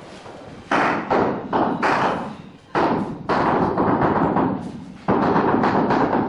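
The end of a wooden handle tapping on a large ceramic floor tile, seating it into its mortar bed. A few separate knocks at first, then quick, continuous tapping from about three seconds in.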